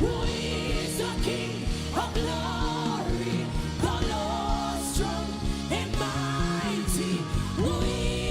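Live church worship music: held keyboard chords and bass under a singing voice that bends and wavers, with no clear words.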